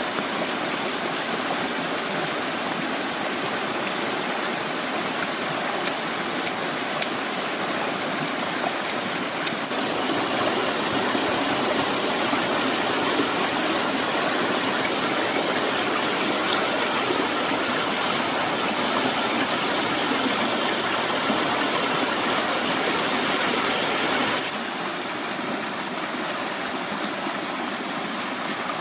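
Stream water rushing steadily, a continuous hiss of flowing water; it steps up in level about a third of the way in and drops suddenly a few seconds before the end.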